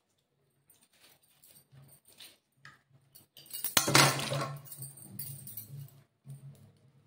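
Knife cutting a tomato on a steel plate in small faint taps, then a loud metallic clink and clatter about four seconds in as the knife is set down in a metal cooking pot.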